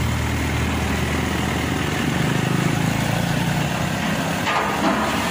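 Diesel engine idling steadily, its note shifting a little higher about two seconds in.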